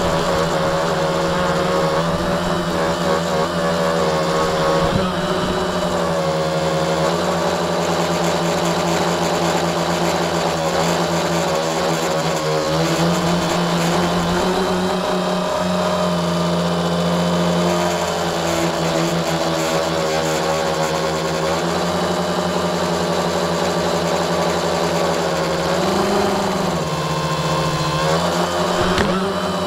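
Tricopter's three electric motors and propellers whining steadily, heard close up from the camera on the craft. The pitch rises and falls with throttle changes, with a clear dip about 26 seconds in.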